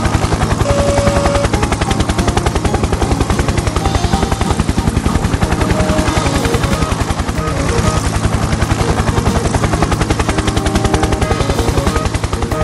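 Helicopter rotor sound effect: a rapid, steady chopping of the blades that runs on unbroken as the helicopter takes off and flies away.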